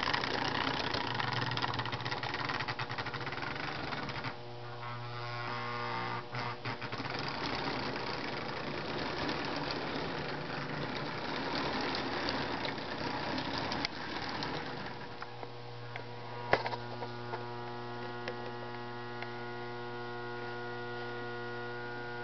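Lionel 221 O-gauge toy steam locomotive running on three-rail track with passenger cars, its electric motor whirring and wheels rattling over the rails. About fifteen seconds in the train stops, leaving a steady electrical mains hum with a few sharp clicks.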